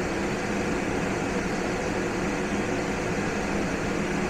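CountryMod 24V DC low-profile rooftop air conditioner running flat out with its compressor on and the fan on its highest setting: a steady rush of air over a low, even hum.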